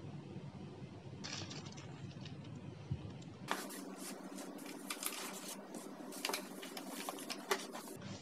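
Faint hiss, then from about three and a half seconds in, irregular clicks and rustling, like something being handled at close range.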